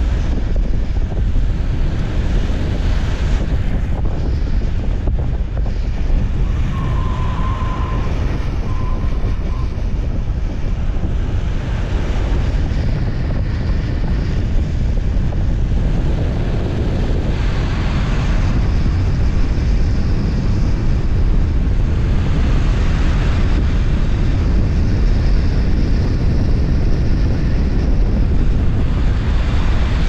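Loud, steady wind rushing over the microphone of a camera moving at downhill speed, with a low road rumble beneath it that swells and eases every few seconds.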